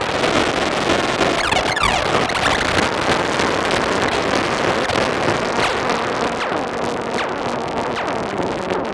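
Novation Bass Station 2 analogue synthesizer playing a dense, noisy drone with swooping falling pitch sweeps, its envelopes looped by the retrigger function and run through a tape-echo effect.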